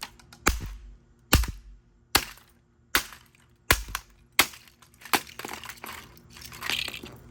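Plastic vacuum-cleaner housing being smashed open: about seven sharp blows, a little under a second apart, followed by plastic cracking, splintering and rattling as the casing comes apart.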